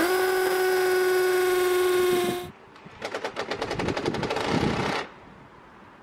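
A power drill spins up and runs at a steady whine for about two and a half seconds. After a short pause comes a fast, rattling run of hammering knocks for about two seconds.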